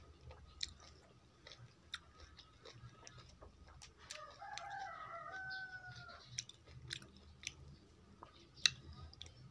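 Close chewing with small clicks from peeling food by hand. A rooster crows once, a little before the middle, for about two seconds.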